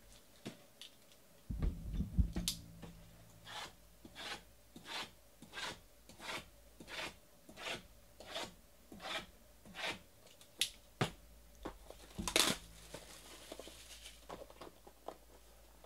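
A run of soft, evenly spaced taps, about two a second, then a sharp rip and crinkle about three-quarters of the way through as the cellophane shrink-wrap is torn off a Topps trading-card box.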